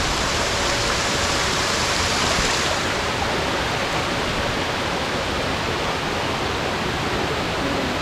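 Steady rushing of falling water from waterfalls and small cascades, an even hiss that turns a little duller about three seconds in.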